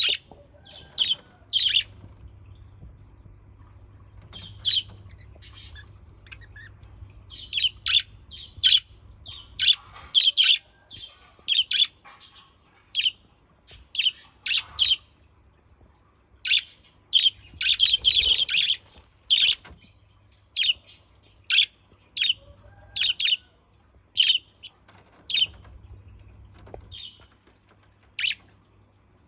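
Budgerigars calling: short, sharp chirps and squawks in irregular bursts, thickest about eighteen seconds in. A faint low hum sits beneath them.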